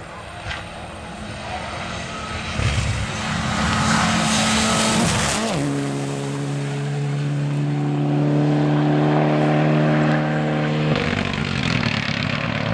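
Mitsubishi Lancer Evolution rally car's turbocharged four-cylinder engine at full throttle as the car slides past on gravel. Its pitch climbs as it approaches, drops sharply as it passes about five seconds in, then holds one steady note until it stops near the end. Gravel and dust spray from the tyres as it goes by.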